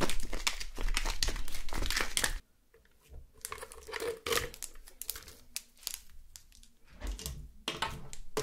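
Thin plastic slime package crinkling as it is squeezed to push the slime out. About two and a half seconds in the crinkling stops abruptly, leaving quieter scattered crackles as the slime is handled.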